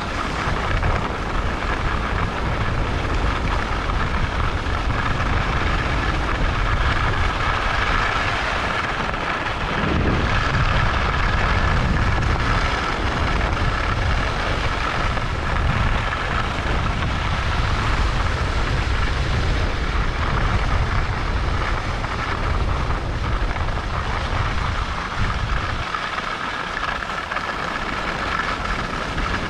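Wind rushing and buffeting over the microphone, with skis sliding and scraping on the piste during a downhill run; the low wind rumble eases near the end.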